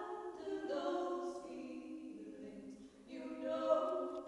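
Voices singing a slow, wordless harmony, long notes held and changing about once a second.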